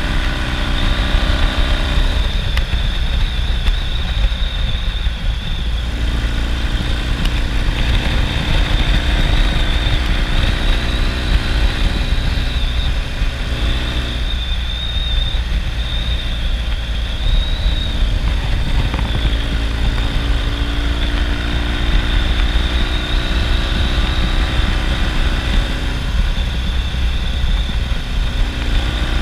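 1970 Norton Commando's 750 cc parallel-twin engine running under way, its note easing off and picking up again several times with the throttle, over a heavy wind rush on the microphone.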